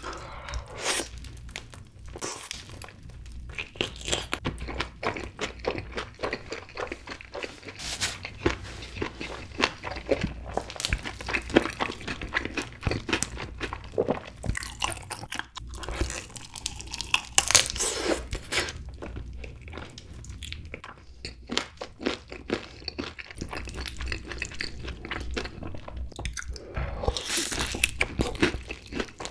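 Close-miked crunching and chewing of crispy yangnyeom fried chicken drumsticks glazed in sweet-spicy sauce. The battered skin crackles densely, with louder crunches at each new bite, and some bites are dipped in cheddar cheese sauce.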